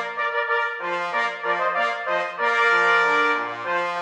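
Brass fanfare played as intro music: several horns sound chords in short held notes that change every half second or so, swelling louder for a longer chord about two and a half seconds in.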